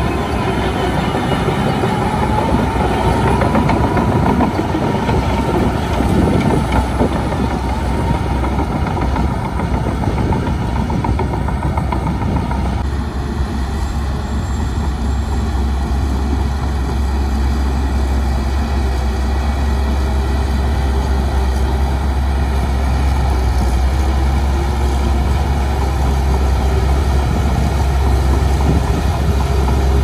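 Shantui DH17C2 crawler bulldozer's diesel engine running under load, with its steel tracks clattering as it pushes soil and weeds. Part way through the sound changes abruptly to a steadier, lower drone.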